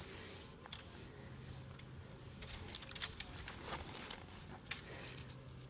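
Faint scattered rustling and small snaps of twigs and brush, a loose run of light crackles through the middle.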